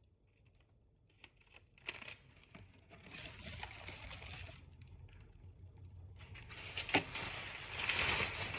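Faint rustling and crinkling noise with a few scattered clicks, near silent at first and growing louder in the last couple of seconds.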